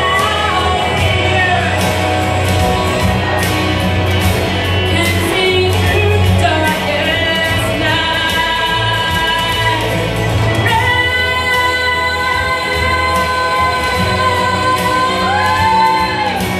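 A woman singing into a microphone over instrumental backing with a steady bass line, amplified through a PA. She holds long, sustained notes, and near the end her voice slides up and back down.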